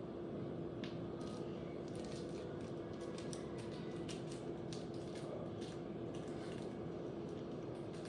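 Slime being handled and squished by hand: a scatter of small, irregular sticky crackles and clicks.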